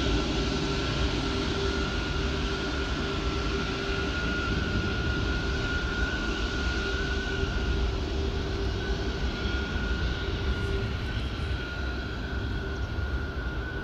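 Airbus A340-600's four Rolls-Royce Trent 500 turbofan engines running: a steady jet rush with a steady whine, slowly growing fainter.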